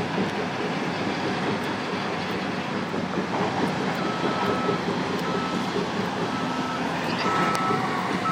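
Cat 320C excavator running with its hydraulic hammer working, a steady dense mechanical din. From about halfway in, a backup alarm beeps at an even pace, roughly one beep a second.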